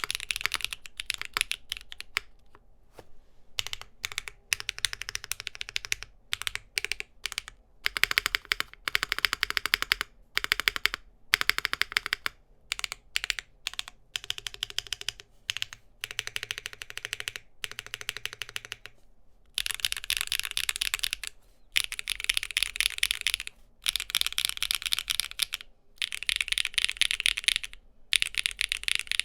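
Typing on a mechanical keyboard with HMX Firecracker tactile switches (POK stem, nylon top and fiberglass-filled P6 nylon bottom housing): rapid runs of keystrokes broken by short pauses. The clicks are clacky but on the deeper side, not harsh.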